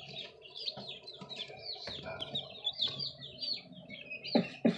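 A group of baby chicks peeping steadily: many short, high, falling chirps every second. Two thumps are heard near the end.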